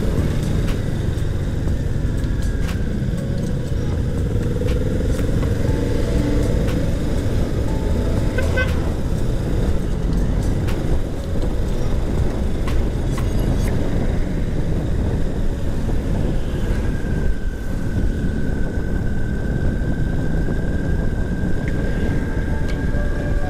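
Motorcycle engine running as the bike rides along, with a steady dense low rumble. A thin, steady high whine comes in about two-thirds of the way through and holds to the end.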